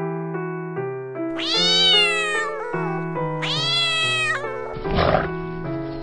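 Two cat meows, each about a second long, rising then falling in pitch, over piano music. A brief noisy burst follows near the end.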